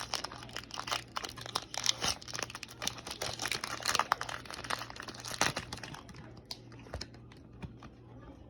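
Foil booster-pack wrapper crinkling while Pokémon cards are handled: dense crackling for about six seconds, then only a few faint clicks.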